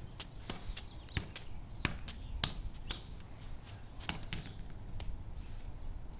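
Juggling balls slapping into hands as they are caught, a run of sharp smacks, about two a second and slightly uneven.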